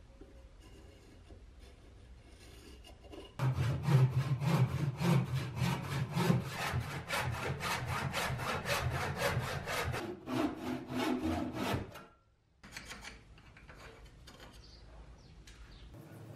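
Dexter hand saw cutting through the end of a wooden axe handle clamped in a vise, with quick, regular push-pull strokes that start about three seconds in and stop about twelve seconds in. Fainter scratching follows, a pencil marking out the sawn end grain.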